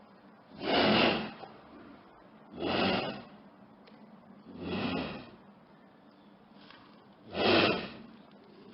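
An animal's breathy, noisy huffs, four in a row about two seconds apart, each under a second long.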